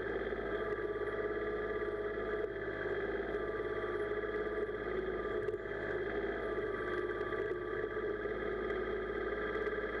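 Kubota compact tractor's diesel engine running steadily while the backhoe's control levers are worked.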